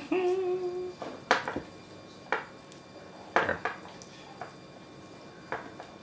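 A short held hum from a man's voice, then a handful of light knocks and clicks about a second apart, from items being handled on a tabletop.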